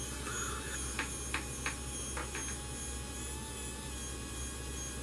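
Faint steady whir and hum of a 3D printing pen's filament feed motor and fan running, with a few light ticks in the first half.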